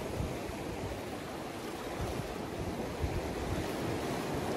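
Sea swell washing around shoreline rocks, with gusty wind rumbling on the phone's microphone.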